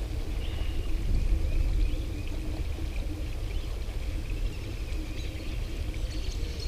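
Wind rumbling on the microphone, with a faint steady hum and a few faint chirps.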